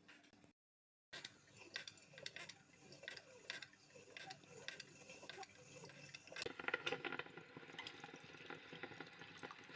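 Kitchen cooking sounds: light clinks and taps of utensils and dishes, then from about six and a half seconds in a denser, crackling liquid sound, after a brief moment of dead silence near the start.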